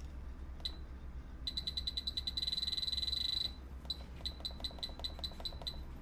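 Tattoo machine buzzing with a steady low hum. Over it comes a high-pitched chirping, first a rapid trill for about two seconds, then separate pips about four a second.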